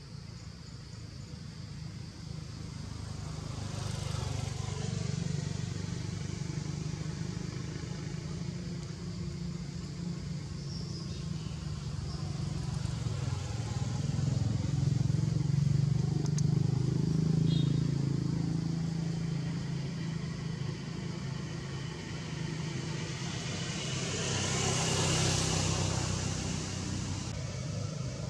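Motor traffic passing on a road: a low engine hum that swells and fades, loudest around the middle, with a brief rushing swell near the end as a vehicle goes by close.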